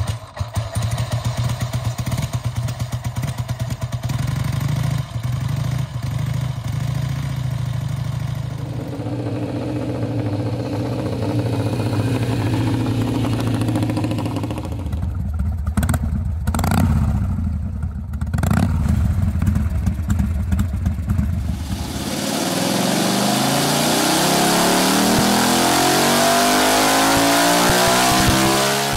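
V-twin motorcycle engines running: a steady run for roughly the first half, a lower, changing run with a few abrupt breaks in the middle, and in the last several seconds an engine accelerating with a steadily rising pitch.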